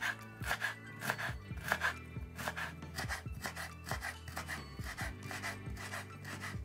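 Chef's knife chopping fresh dill on a wooden cutting board: a steady run of quick chops, about three a second, each a short scraping knock of the blade on the wood.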